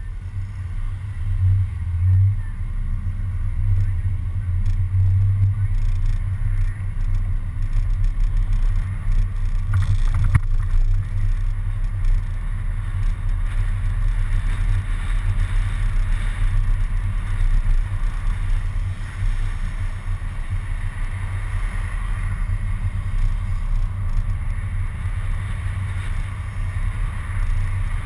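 Steady low rumble of a city bus driving, with wind and road noise picked up by a camera mounted outside on the bus's front.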